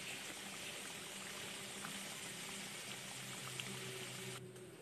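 Fish curry gently simmering in the pan: a faint, steady bubbling hiss with a few tiny pops, growing quieter near the end.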